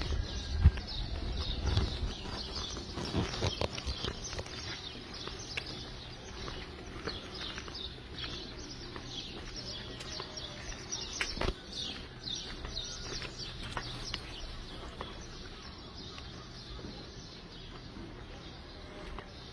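Many small birds chirping and twittering together in a busy, continuous chorus. A few low rumbling thumps sound in the first couple of seconds.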